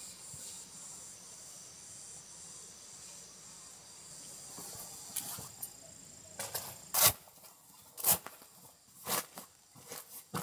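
Insects chirping steadily, then from about halfway a series of sharp clacks and knocks as the metal frame of a folding camp chair is opened and set down on gravel, the three loudest about a second apart.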